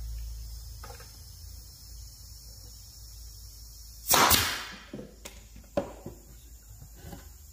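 Pneumatic nail gun firing a nail into the side of a pine shelf about four seconds in: one sharp loud shot with a short trailing hiss. A couple of much lighter knocks follow.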